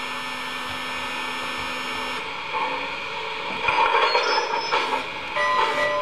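MTH RailKing Union Pacific Big Boy model locomotive's onboard digital sound system playing steam sounds through its speaker: a steady hiss at first, then rhythmic steam chuffing from about halfway in, and a held steam whistle starting near the end.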